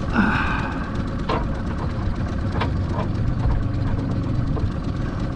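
Outboard motor idling steadily with a low rumble, with a few short clicks over it.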